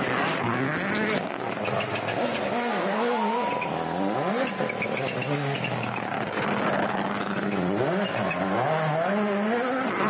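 Rally car's turbocharged engine revving hard as it passes close by, pitch swinging rapidly up and down through gear changes and lifts; in the second half it is a Toyota GR Yaris Rally1.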